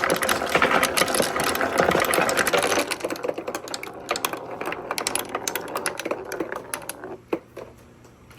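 A crowd of marbles clattering down a marble run, a dense rattle of rapid clicks that thins out after about three seconds into scattered single clicks and dies away near the end as the last balls pass.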